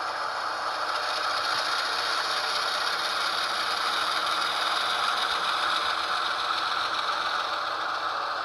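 HO-scale Athearn Genesis ES44DC model locomotive running along its track: a steady diesel running sound from its DCC sound decoder through a small onboard speaker, mixed with the mechanical rattle of the model's drive and wheels.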